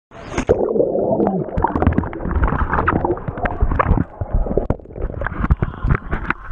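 Muffled underwater sound of a camera held under a bubbling pool: gurgling bubbles and water moving, with many small sharp clicks against the housing. It goes under about a second in.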